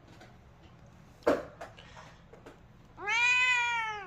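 A domestic cat gives one long meow, about a second long, near the end; its pitch rises a little and then falls. A short sharp knock comes about a second in.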